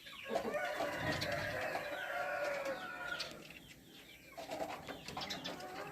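Domestic chickens calling: one long held call from about half a second to three seconds in, then after a short lull, shorter calls near the end.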